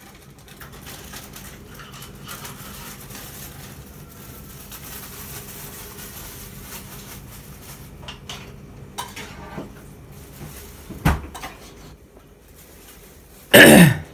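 Pots, bowls and utensils being handled at a kitchen counter: scattered clinks and knocks, one sharp knock a few seconds before the end, then a loud clatter near the end.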